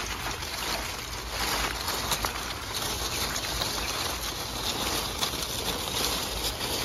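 Steady rustling and crackling of stiff pineapple leaves and newspaper fruit wraps as people move through the field, over a constant low rumble of wind on the microphone.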